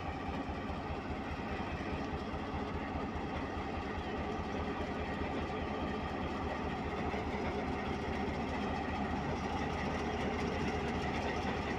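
Pakistan Railways GMCU-15 diesel-electric locomotive's engine idling, a steady low throb that grows slightly louder.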